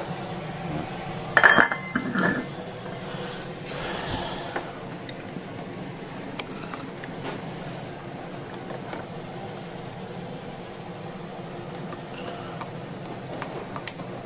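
Kitchen utensils and dishes clattering and clinking, loudest in a short burst about one and a half seconds in. Then wooden chopsticks tap and scrape inside a plastic food container, with occasional small clicks, over a steady background hum.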